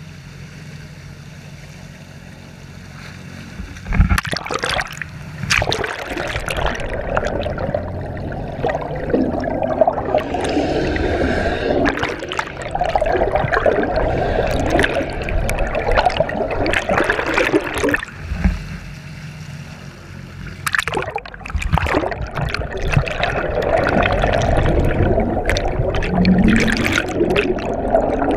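Water rushing and gurgling around an underwater camera, with many small clicks and splashes. It is quieter and steadier for the first few seconds, then gets louder and more turbulent about four seconds in.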